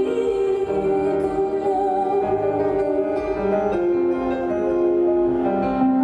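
Slow music with long held notes that change pitch about once a second.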